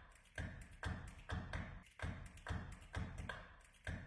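A quiet, steady beat of soft percussive taps, about two and a half a second.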